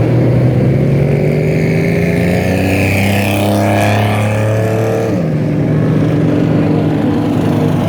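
Off-road vehicle engine running under load, its pitch climbing slowly for about five seconds, then dropping suddenly and holding steadier, as when the driver lets off or shifts.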